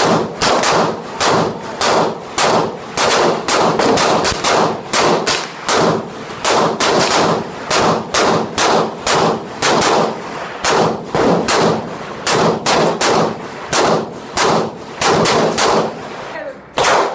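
Gunfire at a shooting range: a continuous string of sharp gunshots, about two to three a second, uneven in spacing and loudness, with a short break near the end.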